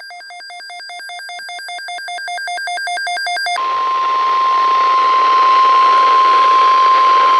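An Emergency Alert System activation over a NOAA Weather Radio broadcast. First come about three and a half seconds of rapid, stuttering data tones: the SAME digital header. Then the steady 1050 Hz warning alarm tone sounds over radio hiss. The sound grows louder through the first few seconds, and it signals that a weather alert is about to be read.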